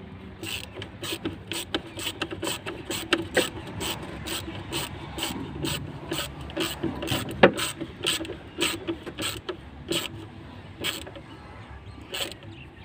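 A screwdriver tightening the worm-drive hose clamp on a Mahindra Bolero's air intake duct: a run of sharp clicks, about two to three a second, with one louder click a little past halfway, stopping shortly before the end.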